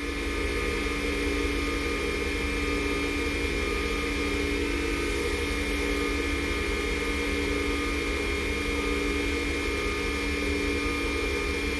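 Small wood lathe running steadily with an even hum, spinning a padauk pen blank while a rag of friction polish is pressed against it to build heat that helps seal the finish.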